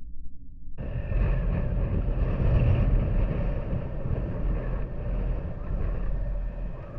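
Honda Super Cub's small single-cylinder four-stroke engine running while riding, mixed with wind and road noise. The sound is muffled at first, then cuts in sharply at full loudness about a second in.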